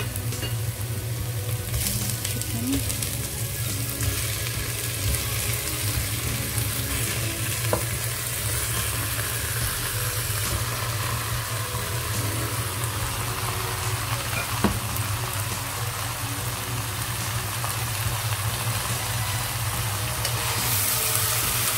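Onions and whole spices sizzling in hot olive oil in a pot as seasoned raw chicken pieces go in, a steady frying hiss over a low hum. Two brief sharp clicks, about eight and fifteen seconds in.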